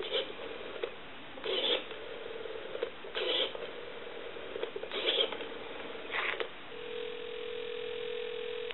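A rotary telephone dial is wound and released five times, about one and a half seconds apart, each return a short burst of clicking over a faint tone on the line. About six and a half seconds in, the dialing stops and a steady ringing tone comes over the line as the number rings.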